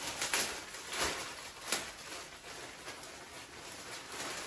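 Plastic mailer bag being torn open and crinkled by hand, with a few sharp rips in the first two seconds, then steady rustling of plastic.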